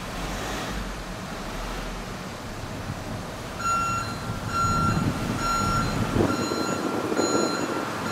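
A truck's reversing alarm beeping about twice a second, starting about three and a half seconds in, over engine rumble and street noise.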